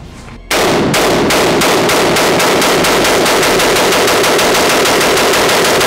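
Rapid automatic gunfire, about eight or nine shots a second, starting about half a second in and going on without a break.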